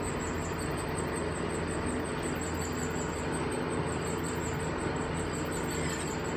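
Metal lathe running steadily with an even hum, as a part is bored out with a cutting tool.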